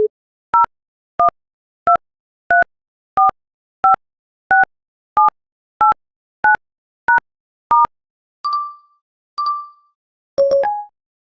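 iPhone phone-keypad touch tones: a dozen short two-tone beeps, evenly spaced about two-thirds of a second apart, the tone pair changing from key to key. They are followed by two short ringing tones that fade out, and a cluster of beeps near the end.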